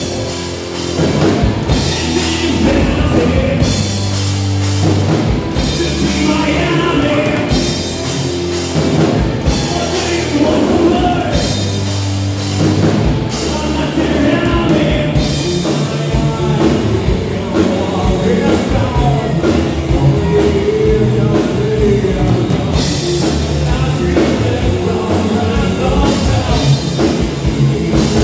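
Live rock band playing: two electric guitars over a drum kit.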